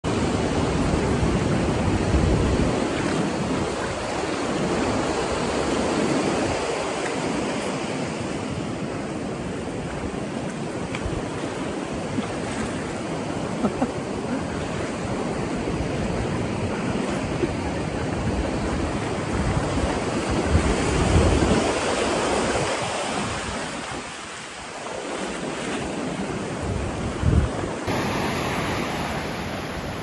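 Ocean surf washing up a sandy beach, foam rushing in and drawing back in swells, with wind buffeting the microphone.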